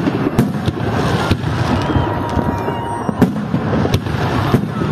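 Fireworks display: aerial shells bursting in a string of sharp bangs over continuous crackling and rumble.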